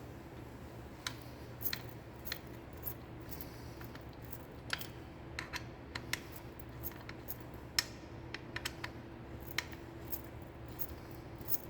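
Small irregular metallic clicks and taps as a bolt is worked by hand into the rear brake master cylinder of a motorcycle, over a steady low hum.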